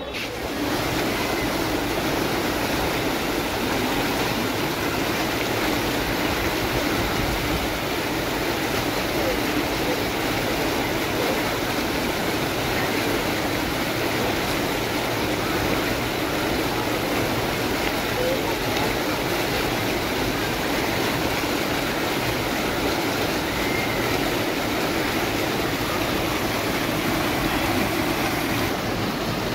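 Spring water rushing steadily down a stone-lined garden channel, a constant loud roar of flowing water.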